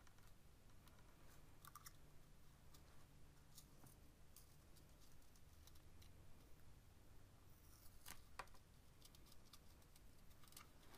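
Faint, scattered clicks of glass seed beads and beading wire being handled as a beaded wire strand is wrapped around a loop to form a rose petal.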